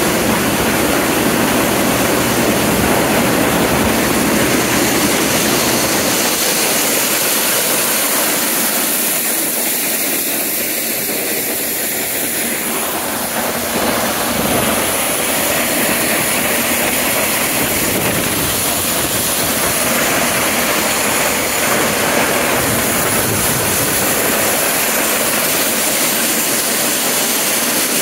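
A John Deere 43 corn sheller shelling popcorn ears, driven by a John Deere 720 tractor: a loud, steady machinery noise with the tractor's engine running under it.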